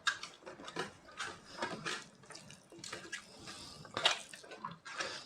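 Wet eating sounds: food being mixed, scooped and chewed, a run of short irregular squelches and smacks.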